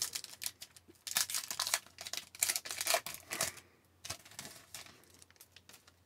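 Foil wrapper of a hockey card pack crinkling and tearing open, a dense crackle from about one second in until past three seconds, followed by scattered light clicks and taps as the cards are handled.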